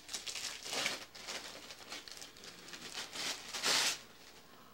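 Wrapping paper being torn and crumpled off a gift box by hand, in uneven rustling bursts, with the longest, loudest rip about three and a half seconds in.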